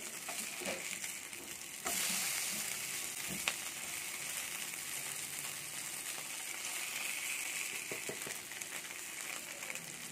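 Masala-coated sand whiting (kizhangan meen) shallow-frying in hot oil in a nonstick pan: a steady sizzle that gets louder about two seconds in. A single sharp tap of the spatula on the pan about three and a half seconds in.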